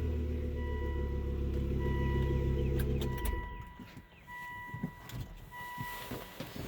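Volvo S60R's turbocharged five-cylinder engine idling steadily with its airbox cover off, then shut off about three seconds in. A car warning chime beeps steadily about once a second throughout, and a few light clicks and knocks follow once the engine stops.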